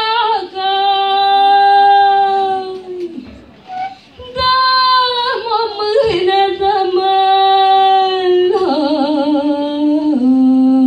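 A young female singer sings a Romanian folk ballad into a microphone, holding long notes with vibrato. She breaks off for about a second near the middle, then goes on, ending with a wavering, ornamented phrase that steps down in pitch.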